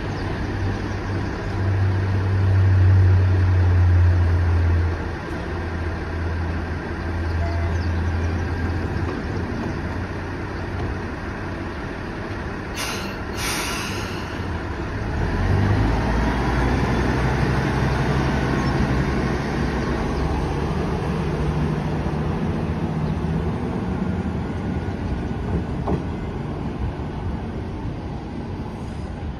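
Train running with a steady low hum. About 13 s in there is a short double hiss. From about halfway through, the low tone climbs steadily in pitch as the train picks up speed.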